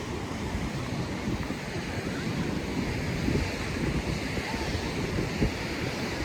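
Sea waves washing onto a beach, with wind buffeting the microphone in gusts.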